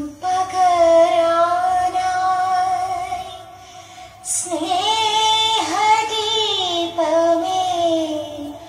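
A woman's voice singing a slow Malayalam film song, held in long notes that waver in pitch, with little accompaniment heard.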